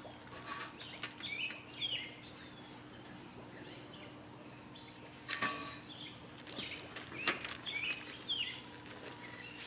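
Small birds chirping repeatedly in short, pitch-gliding calls, with a brief rustle about five and a half seconds in and another about seven seconds in.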